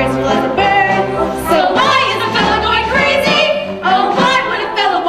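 Teenage girls singing a comic musical-theatre number, holding notes with a wide vibrato, over instrumental accompaniment.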